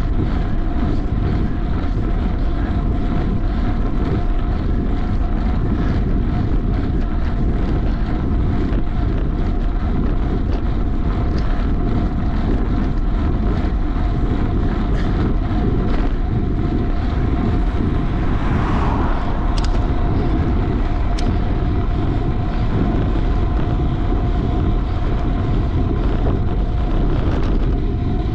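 Wind buffeting the microphone on a road bike ridden at time-trial race pace, over steady riding noise with a high hum held throughout.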